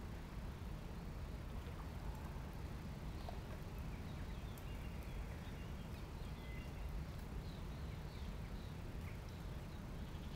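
Steady low outdoor rumble with faint, scattered bird chirps and short whistles.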